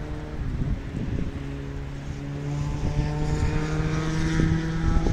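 A steady motor drone with several pitched tones comes in about a second and a half in and builds, over a low rumble of wind on the microphone.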